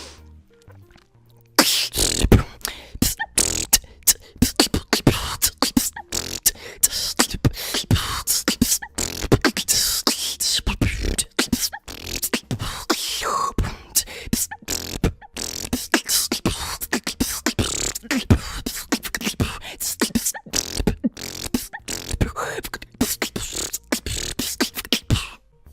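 A female beatboxer performing a fast beatbox routine of mouth percussion with some voiced tones mixed in, starting about a second and a half in and stopping just before the end.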